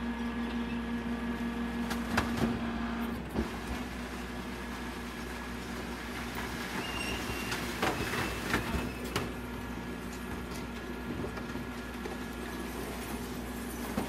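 Rear-loader garbage truck running, its hydraulic bin lifter tipping plastic wheelie bins into the hopper. A steady mechanical hum with a whine that drops away about three seconds in, and a few sharp knocks and bangs as the bins are tipped and shaken out, around two to three seconds in and again around eight to nine seconds.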